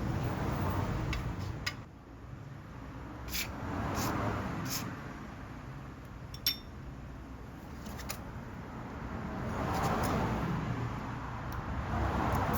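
Small carburettor parts being handled while they are cleaned: a few sharp clicks and metallic clinks, with a rushing noise that swells and fades twice.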